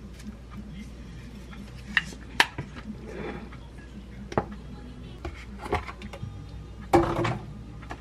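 Ceramic dish and plastic container being handled on a kitchen countertop: a few sharp clinks and knocks, the loudest near the end, over a steady low hum.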